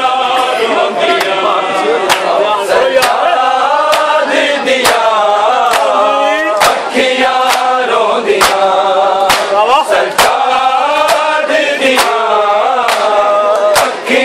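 A group of men chanting a Punjabi noha (Shia lament) together, with sharp, even beats about three every two seconds keeping time, typical of matam (chest-beating) accompanying the recitation.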